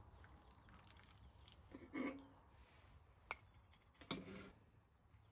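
Quiet handling of camp coffee gear: a few light knocks and clinks, about two, three and four seconds in, as a stainless mesh coffee filter is set down on a steel lid and glass mugs are moved on the table.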